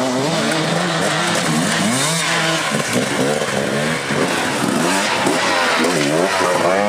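Dirt-bike engine revving up and down over and over, the pitch rising and falling in waves.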